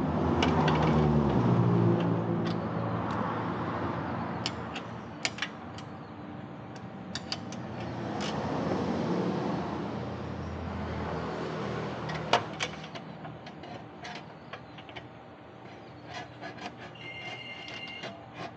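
A motor vehicle's engine swells up and fades, twice, with many scattered sharp clicks and a louder click about twelve seconds in.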